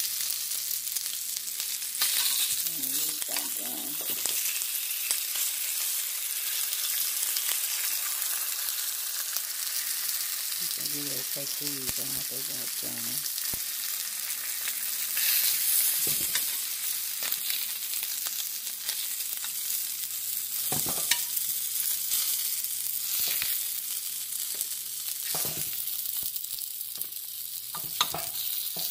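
Sausage patties sizzling in hot oil in a nonstick skillet, a steady high hiss, with a few short knocks scattered through it.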